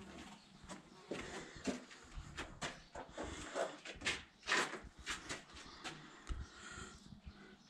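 An irregular series of light knocks and clicks, several a second, loudest about four and a half seconds in.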